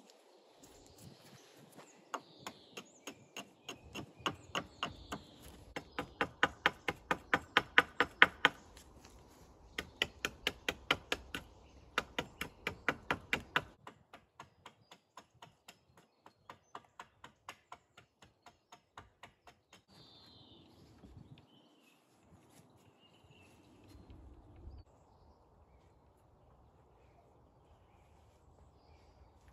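Quick, regular wooden clacks, about three or four a second, as birch sticks are laid one after another across a lashed pole frame; they turn faint after about fourteen seconds and stop near twenty.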